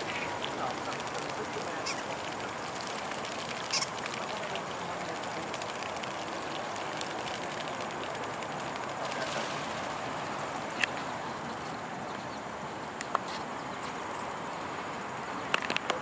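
A flock of European starlings bathing together in a shallow puddle: steady splashing and fluttering in the water, with a few short clicks.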